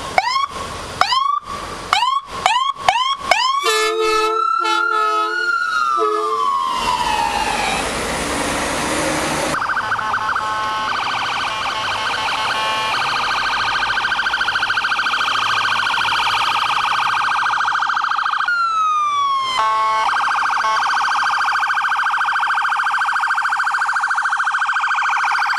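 Emergency vehicle sirens sounding loudly and switching modes. Rapid repeated rising chirps come first, then a long falling wail a few seconds in, then a steady, fast-pulsing high tone for the rest, broken by one short falling sweep past the middle.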